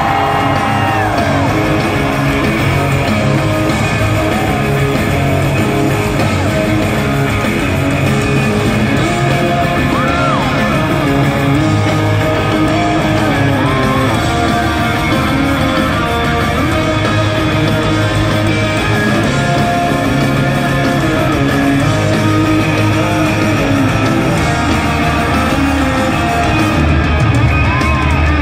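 Rock band playing live in an arena: electric guitars, bass and drums at full volume, heard through a phone's microphone from the audience.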